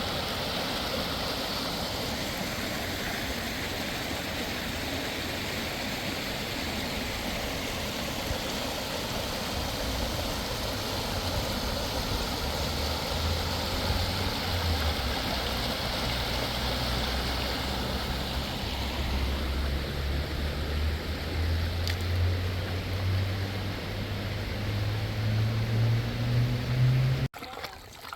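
Rushing river water, a steady hiss. From about a third of the way in, a low engine hum joins it and climbs slowly in pitch, then both cut off suddenly near the end.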